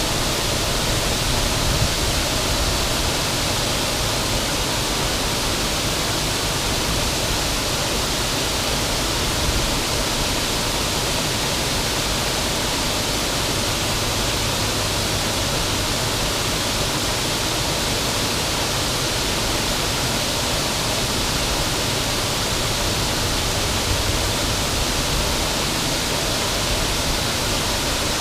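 River waterfall: water pouring over the falls in a steady, even rush.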